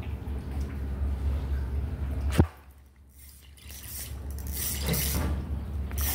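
Handling noise as a hooked rabbitfish is struck and brought in on a light jigging rod: a steady low hum, a sharp click about two and a half seconds in, a brief quiet spell, then rustling and clattering.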